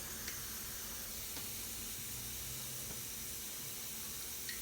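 Steady faint background hiss with a few small, faint clicks, as of hands handling the bike's valve stem.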